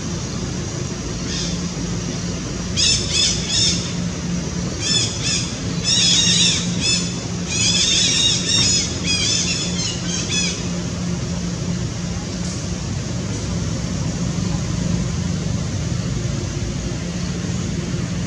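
A run of short high-pitched animal calls, several a second, from about three seconds in until about ten and a half seconds in, over a steady low background hum.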